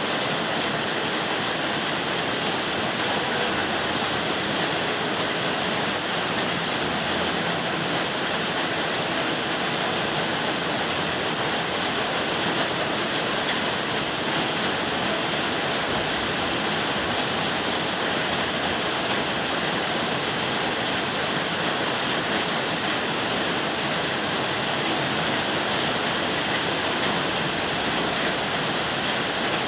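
Rain falling steadily, a dense, even hiss with no breaks or changes.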